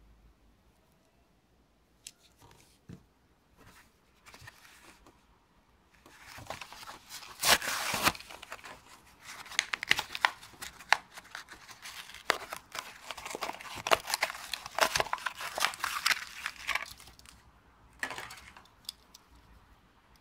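Matchbox diecast car's cardboard blister card and clear plastic bubble being torn open by hand, crackling and ripping in a long run of bursts. A few light clicks come first, then the tearing runs from about a third of the way in until shortly before the end.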